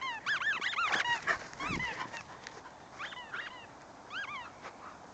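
Dog yipping in excitement: short, high, rising-and-falling yips in quick runs, thick in the first two seconds, then a few scattered ones, dying out near the end.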